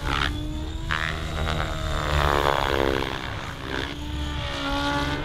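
Radio-controlled aerobatic helicopter in flight. Its rotor and motor pitch rises and falls as it manoeuvres, peaking about two seconds in, with brief rushes of blade noise near the start and about a second in.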